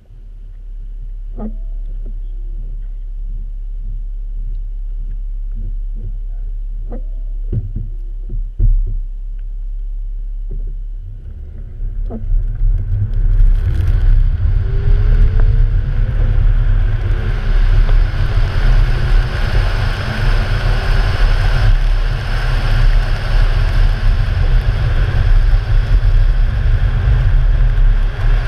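Audi S5 idling with a steady low hum and a few light knocks, then from about twelve seconds in driving off over the snow-covered ice track: engine, tyre and wind noise rise and stay loud.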